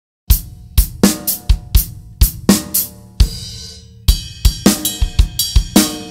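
Acoustic drum kit played: a few separate kick, snare and cymbal hits, a ringing cymbal crash about three seconds in, then from about four seconds a steady triplet-based groove of kick, snare and ringing cymbals.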